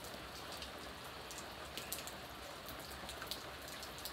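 Heavy rain falling: a steady hiss with scattered sharp ticks of drops striking nearby surfaces.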